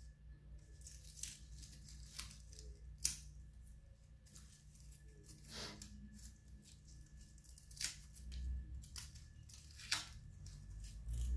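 Dry old orchid roots and bits of potting material being picked and torn off by hand, giving faint rustling and a scattering of small sharp snaps, about one every second or so.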